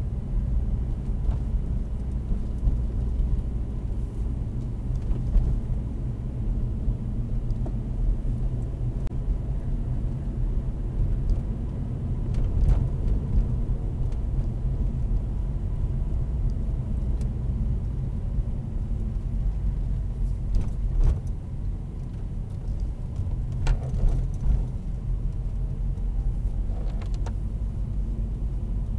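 Engine and road noise of a 2016 Vauxhall Corsa 1.4-litre manual driving at low speed, heard inside the cabin: a steady low rumble, with a few light clicks and knocks in the second half.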